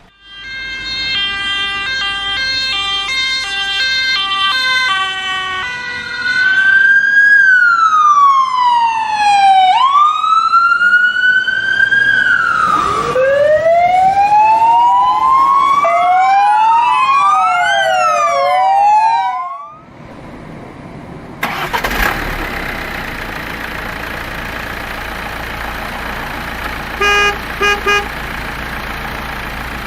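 Emergency vehicle siren: a two-tone hi-lo pattern, then long rising and falling wails and quick yelps. It cuts off about twenty seconds in, and a steady noisy rush follows, with three short beeps near the end.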